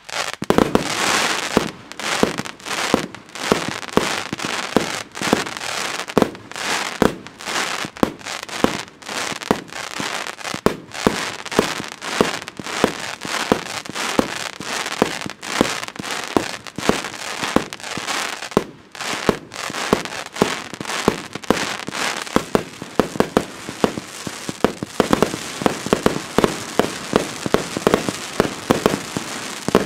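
Transbomber fireworks cake firing a rapid, unbroken series of shots, each launch and burst a sharp bang, with a crackling haze between them. The shots come thicker in the last several seconds.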